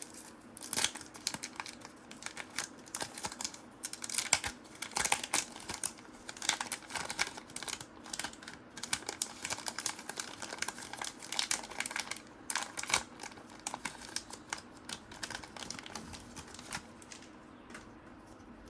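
Paper trading cards being handled and flicked through one after another, with a pack wrapper crinkling: a rapid run of short papery flicks and rustles that dies away near the end.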